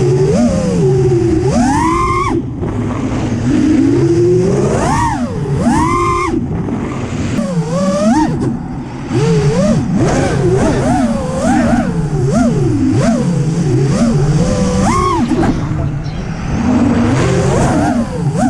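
FPV freestyle quadcopter's brushless motors and propellers whining, the pitch swooping up and down constantly with the throttle, with sharp climbs about two seconds in and again around five to six seconds.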